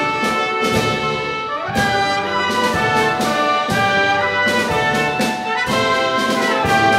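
Live chamber ensemble of woodwinds, brass and percussion playing: held brass and wind chords over regular percussion strokes, with pitches sliding about two seconds in and again near the end.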